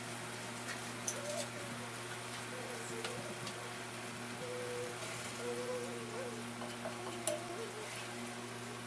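Thick meat-and-onion masala simmering in a pot, giving a few soft pops over a steady low hum, with faint bird cooing in the background.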